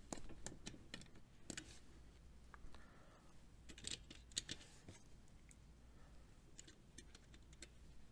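Faint, scattered clicks and taps of plastic and metal as a thermal overload heater element is pressed back into the overload block of a Square D size 00 motor starter.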